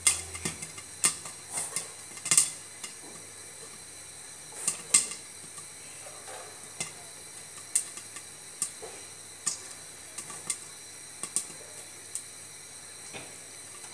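Popcorn kernels popping in hot oil inside a pot covered with a glass lid: sharp, irregular pops about once a second over a steady sizzle. The sparse popping marks the end of the batch, with nearly all kernels already popped.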